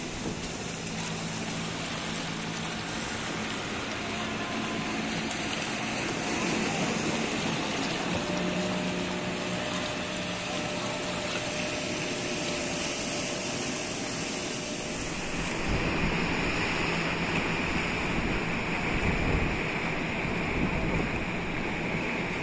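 Sea water washing and splashing against rocks, with the faint steady hum of a small fishing boat's engine underneath. The water sound shifts abruptly about two-thirds of the way through.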